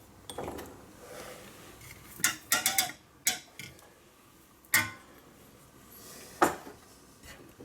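Small shot glasses and dishes clinking and knocking against each other and the table while dried herbs are tipped out: half a dozen separate sharp clinks spread over several seconds.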